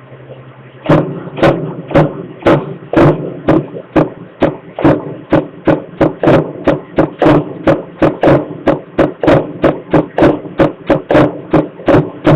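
A low steady hum gives way, about a second in, to a long run of sharp, loud knocks at an even pace of roughly two to three a second, each ringing briefly.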